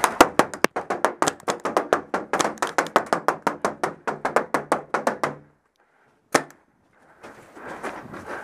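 A rapid string of paintballs striking the plywood walls of a wooden bunker, sharp knocks at about six a second, stopping about five and a half seconds in. One more single knock comes about a second later.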